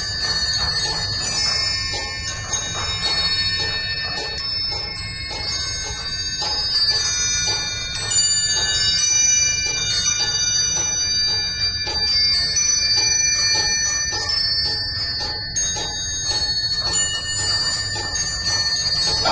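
Many small bells of the Peacock Clock automaton ringing in a continuous chime, with high tones that overlap and die away.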